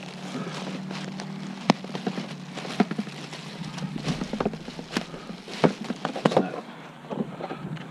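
Objects being handled and shifted while rummaging through a pile of discarded household items: scattered sharp knocks and clicks at irregular intervals, over a steady low hum.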